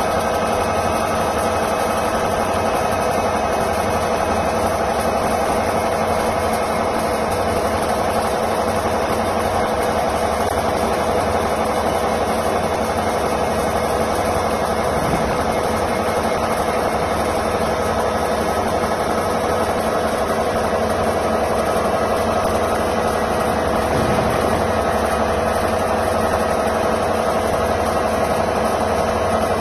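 CNC lathe running with its spindle turning a long steel bar against the turret tool: a steady machine hum with a constant whine that doesn't change.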